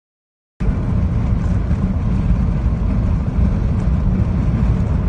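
Strong thunderstorm wind buffeting the microphone: loud, deep, fluttering rumble that cuts in suddenly about half a second in.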